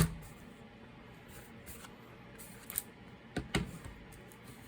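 A few sharp clicks and knocks of a laptop's parts being handled: the loudest right at the start, then a cluster of three a little under three seconds in, over faint room tone.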